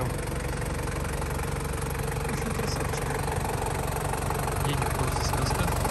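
Toyota 1KZ-TE 3.0-litre four-cylinder turbo diesel idling steadily, a little louder near the end.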